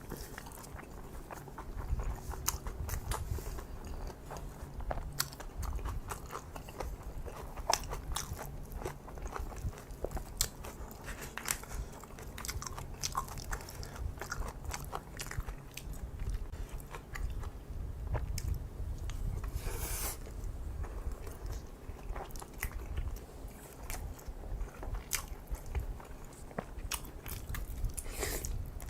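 Close-miked eating of kimchi fried rice with kimchi: chewing and biting with many small crunching clicks throughout.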